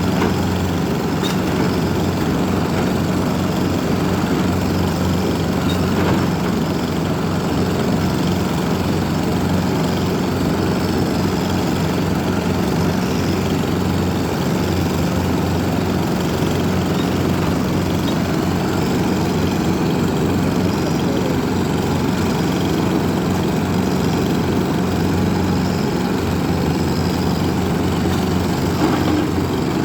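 Diesel engine of heavy construction machinery running at a steady speed, a constant low hum.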